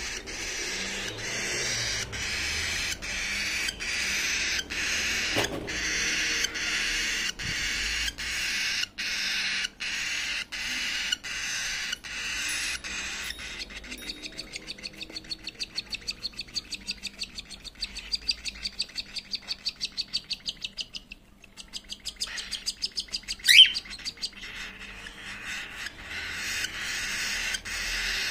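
Cockatiel chicks begging for food while being fed: a rhythmic, raspy calling at about two calls a second that quickens to about four or five a second about halfway through. Near the end there is one loud, short rising squeak.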